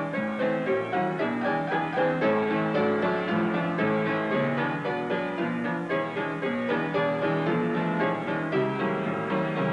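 Solo piano music, the accompaniment score of a silent film, playing a busy, unbroken run of short notes.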